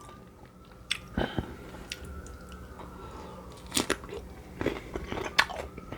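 Close-up eating sounds: crunchy bites into crispy-skinned baked chicken followed by chewing, with sharp crunches about a second in, twice more just after, and a few more in the second half.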